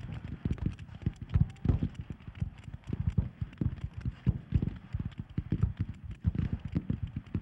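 Footsteps of many soldiers moving quickly over dry ground: a dense, irregular run of dull thuds.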